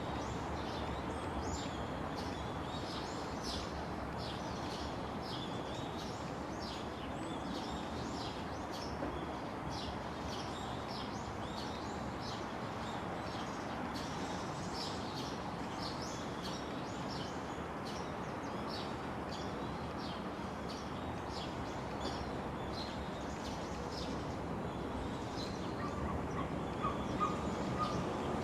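Many small birds chirping in quick short calls over a steady background hiss, with a short run of lower, steadier notes near the end.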